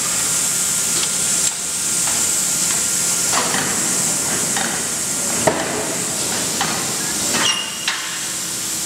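Reducer roll (forging roll machine) working a heated billet: irregular clanks and knocks of the rolls and the steel, the sharpest a little past halfway, over a steady high hiss.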